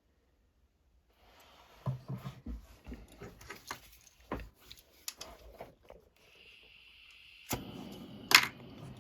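Light clicks and knocks of small tools and metal being handled on a jeweller's bench, then from about six seconds in the steady hiss of a jeweller's gas torch, with two sharp clicks near the end, the second one louder.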